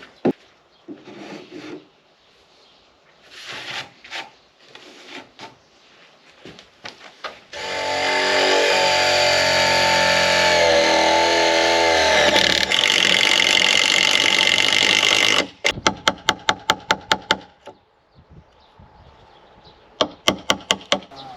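Power drill running for about eight seconds, its pitch shifting partway through. Before it come scattered knocks; after it, two runs of quick sharp clicks.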